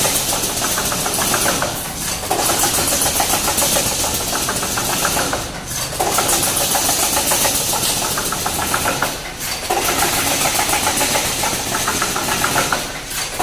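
Automatic wire mesh welding machine running: a fast, even clatter of welding strokes that breaks off briefly about every three and a half to four seconds before starting again.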